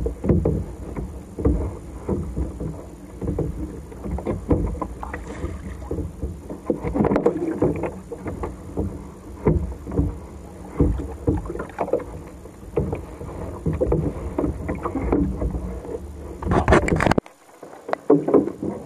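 Sea water slapping and sloshing against a kayak hull, with irregular splashes and wind rumbling on the camera microphone. The sound cuts out abruptly for about a second near the end.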